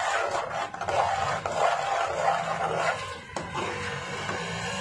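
Metal spoon stirring and scraping thick, wet pav bhaji in a nonstick pot, the scraping easing off about three seconds in.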